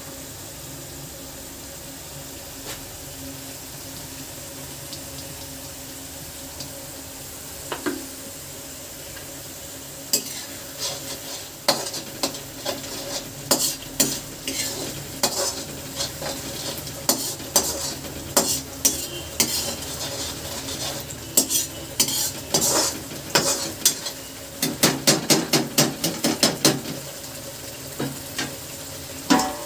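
Curry masala sizzling and bubbling in a pan. From about ten seconds in, a utensil stirs it, scraping and clacking against the pan, with the clatter thickest near the end.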